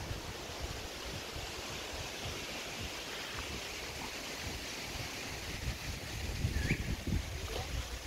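Wind buffeting the camera microphone: uneven low rumbling gusts over a steady rushing hiss, growing gustier near the end.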